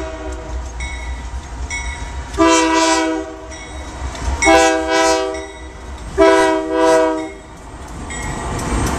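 Union Pacific diesel freight locomotive's air horn sounding three blasts of about a second each, a chord of several notes, as it approaches and passes. Near the end the rumble of the passing locomotives and train builds.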